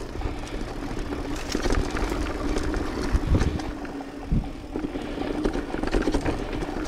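Mountain bike rolling along a rough dirt singletrack: tyre noise and the bike rattling over bumps, with a steady hum underneath and two heavier jolts in the middle.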